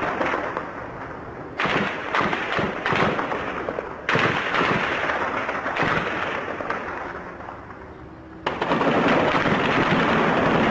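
Gunfire in street combat: rapid shots and heavy reports that echo and die away. Sudden loud bangs come about one and a half, four and eight and a half seconds in. After the last one the firing stays loud and continuous.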